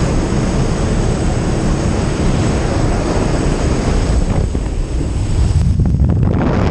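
Loud, steady rush of wind buffeting the microphone, mixed with the jump plane's engine, at the open door of a small plane in flight as skydivers climb out and exit. The high hiss thins for a moment about five to six seconds in.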